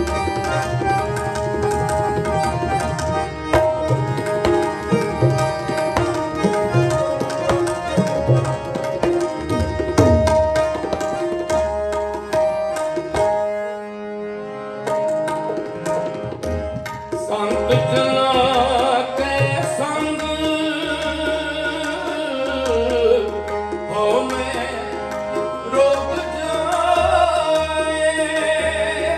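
Sikh kirtan: harmonium drone and melody over tabla playing an instrumental passage. About seventeen seconds in, a man's voice comes in singing the hymn over the harmonium and tabla.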